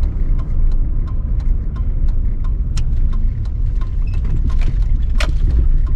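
Pickup truck driving, heard from inside the cab: a steady low road and engine rumble with frequent small clicks and rattles, one louder click about five seconds in.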